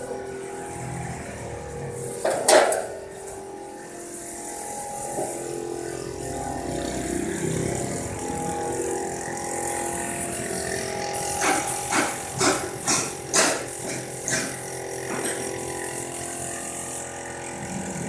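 Steady machinery hum with metal knocks: one loud knock about two and a half seconds in, then a quick run of about eight sharp knocks in the second half, over a high hiss.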